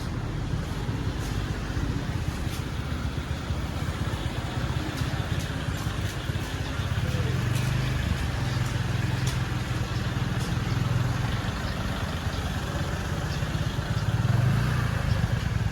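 Steady low rumble of a moving road vehicle, engine and road noise, growing a little louder near the end.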